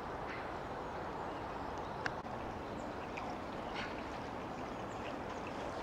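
Steady rush of flowing stream water, with a few short bird calls over it and a single sharp click about two seconds in.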